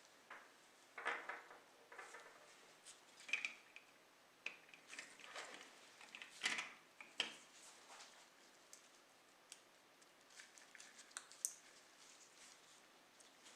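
Faint, scattered clicks, taps and short scrapes of small tools and parts being handled, busiest in the first seven seconds.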